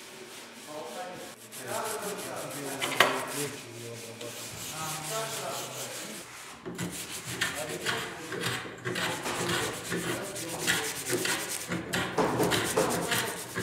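Wood being sanded by hand: repeated scratchy rubbing strokes on wooden slats, coming thicker and faster in the second half, with one sharp knock about three seconds in.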